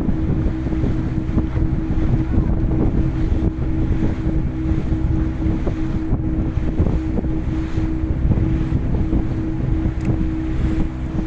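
Boat engine running at a steady speed, with wind buffeting the microphone.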